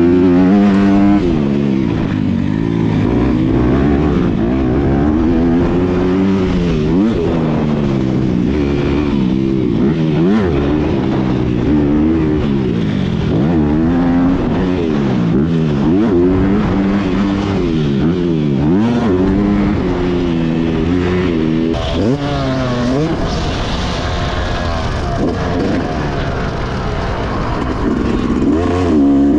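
Yamaha YZ motocross bike engine rising and falling in pitch every second or two as the throttle is opened and closed and the bike is ridden around a motocross track.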